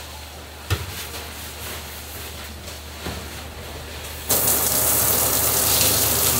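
Quiet brush scrubbing on a bath wall with one knock just under a second in; then, a little past four seconds, a hand-held shower is turned on suddenly and sprays water in a steady loud hiss against the walls and tub.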